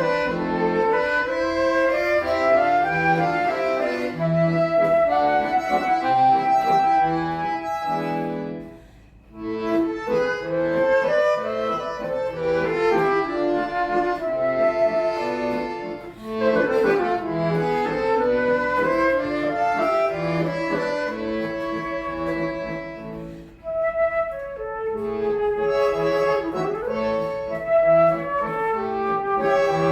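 Live music led by a bayan (button accordion) playing sustained melodic phrases, breaking off briefly twice between phrases.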